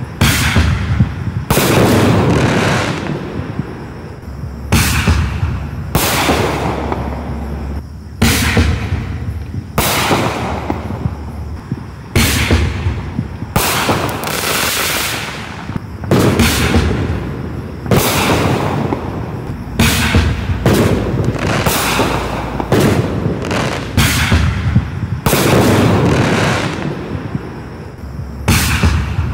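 Black Cat consumer artillery shells fired one after another from a mortar tube: sharp bangs recur every second or two as shells launch and burst in the air, each bang trailing off before the next.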